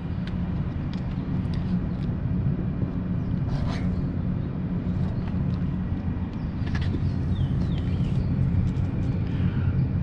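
Outdoor air-conditioner condensing units running: a steady low mechanical hum.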